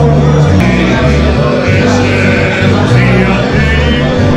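Live band of accordion and guitars playing, with a man singing over a bass line that moves from note to note.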